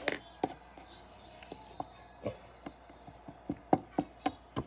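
Slime being pressed and worked by hand, giving irregular sharp clicks and pops, sparse at first, then closer together and louder near the end.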